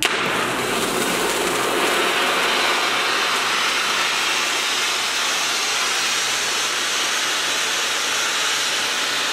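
Black Cat cold pyro fountain set off by remote, starting abruptly and then spraying sparks with a steady, loud hiss.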